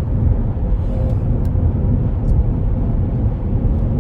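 Steady engine and tyre rumble inside a moving car's cabin, heavy in the low end.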